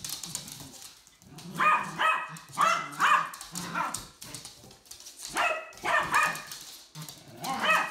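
Two small dogs play-fighting, with sharp barks and yips in a cluster of several about two seconds in, another cluster about six seconds in, and one more near the end.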